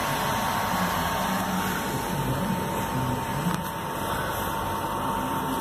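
Steady mechanical hum and whir of a running car, with a faint steady high tone through it and a small click about three and a half seconds in.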